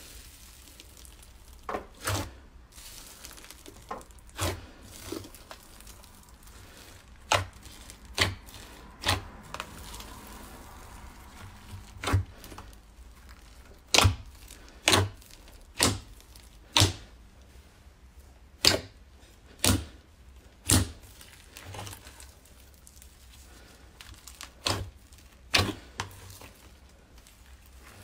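Slime being pressed and squeezed, giving a string of sharp pops and clicks about once a second from air pockets bursting.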